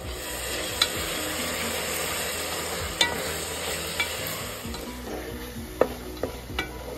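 Chopped tomatoes, onions, chillies and herbs sizzling in oil in a large metal pot as they are stirred with a spatula, with a steady hiss. The spatula knocks sharply against the pot several times, three close together near the end.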